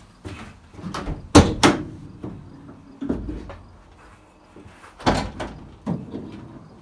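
A van door being handled: two sharp clicks about a second and a half in, then a duller thump and another knock a few seconds later, with light clatter between.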